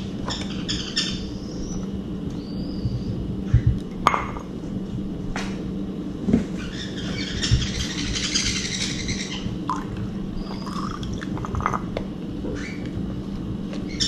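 Water poured from a cup into a small plastic dish lined with paper towel, with a few sharp knocks and clinks as the cup and dish are handled. Birds chirp on and off in the background.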